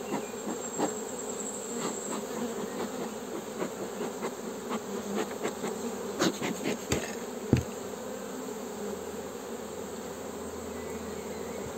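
Honeybees buzzing steadily over an open hive. A few sharp knocks come about seven seconds in.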